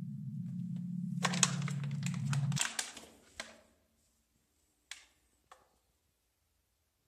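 A low, steady hum that cuts off suddenly about two and a half seconds in, overlapped by a dense run of sharp clicks and crackles. Two single clicks follow, then near silence.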